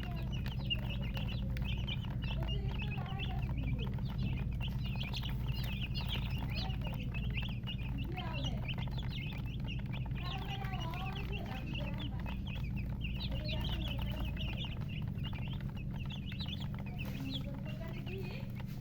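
A brood of chicks peeping nonstop: many short, high peeps overlapping. A hen clucks lower now and then beneath them.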